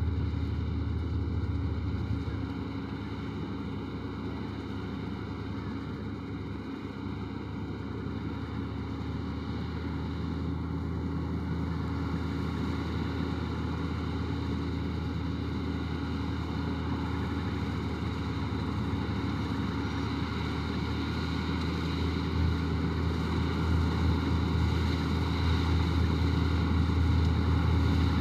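M132 combine harvester running steadily while harvesting, its feeder house chain loose. The sound grows louder over the last several seconds as the machine draws closer.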